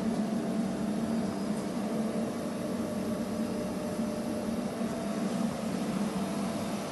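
Toyoda FA450II CNC horizontal machining centre running with a steady hum.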